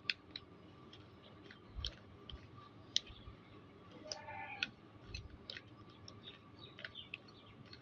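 Rubik's Cube being turned by hand: faint, irregular plastic clicks as the layers are twisted, several a second.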